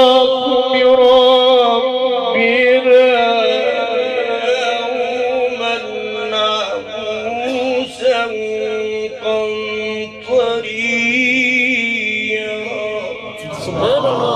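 A man reciting the Quran in melodic tajweed style into a microphone, amplified through a loudspeaker: long held notes with wavering ornaments, broken by a few short pauses for breath.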